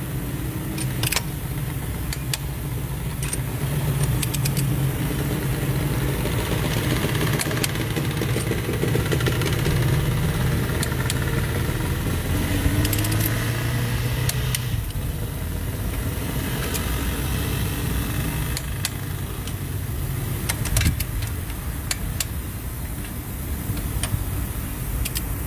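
A motor vehicle engine running steadily with a low rumble. Sharp single clicks come every few seconds from a click-type torque wrench breaking over at its 40 Nm setting as the cylinder head bolts are double-checked.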